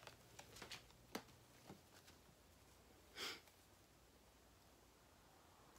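Near silence with room hum, a few faint handling clicks in the first two seconds, and one short sniff about three seconds in.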